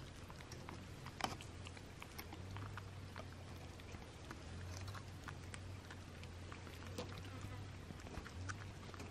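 Faint small clicks and crackles of a young vervet monkey nibbling a grass stem close to the microphone, with one sharper click about a second in, over a low hum.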